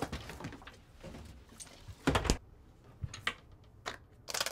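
Kitchen handling noises: refrigerator and cabinet doors and plastic containers being handled, a series of separate knocks and clacks, the loudest a quick pair about two seconds in.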